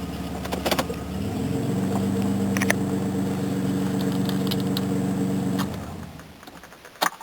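Jaguar XJ6 Series 3 straight-six running with a loud exhaust, its muffler knocked off the pipe. The revs rise a little just over a second in, then the engine is switched off and runs down about six seconds in. A couple of sharp clicks follow near the end, like keys jangling.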